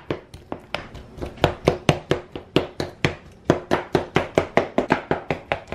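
Metal utensil mashing guacamole in a mixing bowl: quick, even knocks of the utensil through the avocado against the bottom of the bowl, about five a second.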